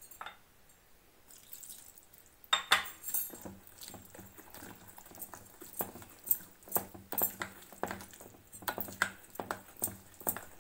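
Cake batter being beaten by hand with a utensil in a glass bowl, the utensil clicking against the glass two or three times a second. It is quiet for the first two seconds or so, then the clicking runs on steadily as milk is worked into the batter.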